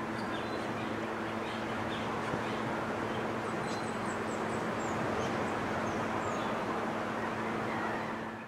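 Small birds chirping in short, high calls scattered over a steady outdoor background hiss with a faint low hum, all fading out at the end.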